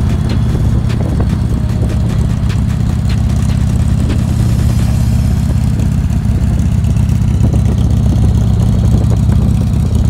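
Motorcycle engine running steadily while riding on the road: a loud, even low rumble with no change in pace.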